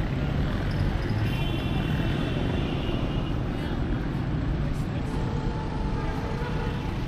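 Steady street noise outside a railway station: traffic rumble with distant voices, and a high tone lasting about two seconds starting about a second in.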